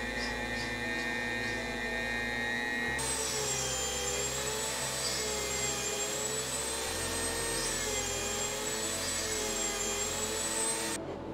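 Dremel rotary tool running at high speed, a small pointed bit cleaning up undercuts in white pine wood. Its whine wavers slightly in pitch from about three seconds in, as the bit bears on the wood, and it cuts off near the end.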